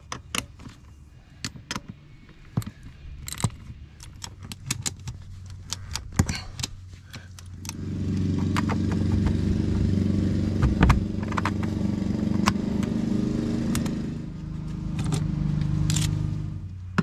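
Metal clinking and ticking of a wrench and bolts on an Argo ATV's track hardware. About eight seconds in, a louder steady engine drone comes in and runs on, then cuts off abruptly at the end.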